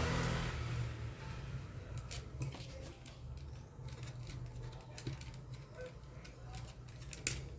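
Scattered light clicks and taps of a small screw and washer being handled and fitted into a plastic hair dryer housing, the sharpest click near the end, over a low steady hum.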